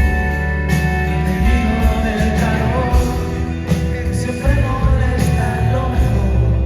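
Rock band playing live, an instrumental passage of the song with a steady beat of drum hits under sustained guitars and keys.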